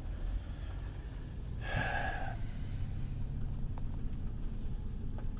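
Steady low rumble of a car's engine and tyres heard from inside the cabin while driving slowly, with one short breathy noise about two seconds in.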